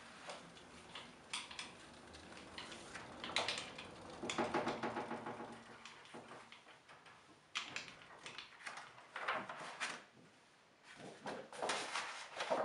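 Letterpress printing press being worked by hand: irregular clanks and knocks of metal and wood, with a quick run of rattling ticks about four to five seconds in and more knocks near the end.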